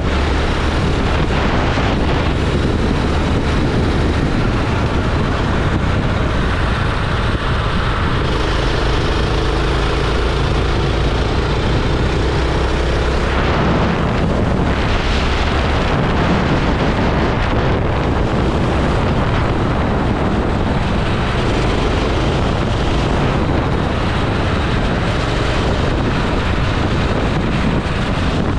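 Go-kart engine running steadily at speed, its note shifting a little, with wind buffeting the microphone.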